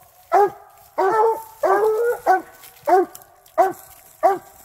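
Hounds barking treed at the base of a tree, marking the end of a bobcat scent drag. Short, evenly repeated barks come about two a second.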